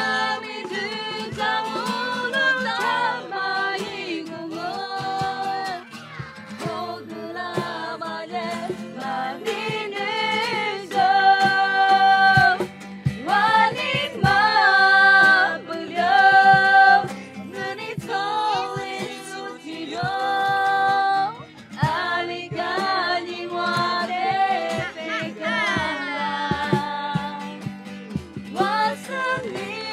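Music: a voice singing long held notes in phrases over instrumental backing with a steady low bass and frequent short percussive strikes.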